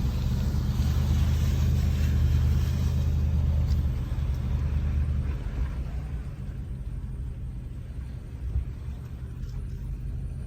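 A motor vehicle's engine running with a low, steady rumble that eases off after about five seconds.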